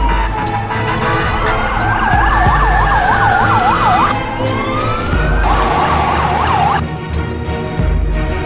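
Siren sweeping slowly down and up in pitch, with a fast warbling yelp laid over it twice, about a second in and again near the two-thirds mark. It plays over background music with a low beat.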